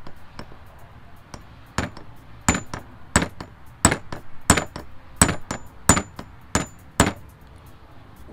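Hammer striking a steel pin punch against a differential carrier to drive out the spider-gear cross-shaft pin: about nine sharp metal blows, roughly one every two-thirds of a second, many with a brief high ring. The pin does not yet budge.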